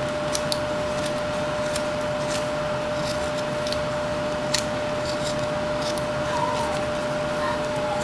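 Whittling knife taking short cuts in a wooden carving: a string of crisp, irregularly spaced snicks over a steady hum.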